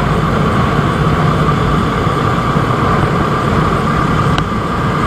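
KTM motorcycle running at steady riding speed, its engine drone mixed with steady wind and road noise.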